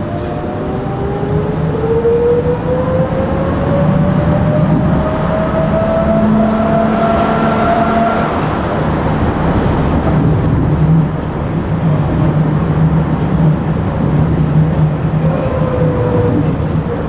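Electric tram running on its rails with a steady low rumble of wheels on track, its motor whine rising in pitch as it picks up speed over the first eight seconds or so, then a falling whine near the end as it slows.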